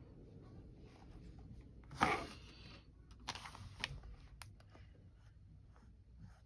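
Handling noises at a table: a short scratchy rustle about two seconds in, a second fainter one a moment later, and a few light clicks.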